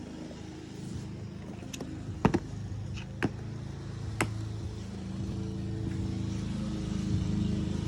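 A steady low motor hum with four sharp clicks or knocks in its first half.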